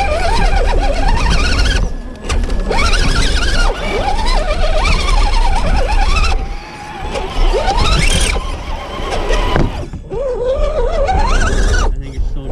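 Electric motor and drivetrain of a 1/10-scale RC rock crawler whining as it climbs over roots and rocks, the pitch sliding up and down with the throttle in several spells, with short breaks where the throttle is let off.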